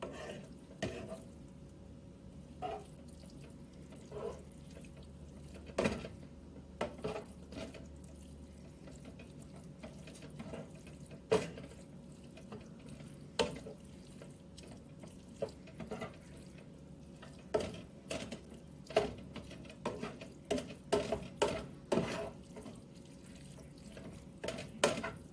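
A cooking spoon stirring cooked ground beef with enchilada sauce and taco seasoning in a pan: wet scraping, with irregular knocks of the spoon against the pan that come more often near the end.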